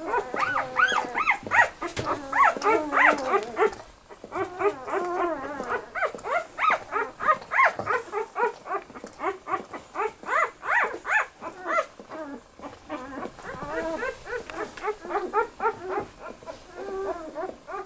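Newborn Australian Shepherd puppies squeaking and whimpering: many short, high calls that rise and fall, several puppies at once, with a brief lull about four seconds in.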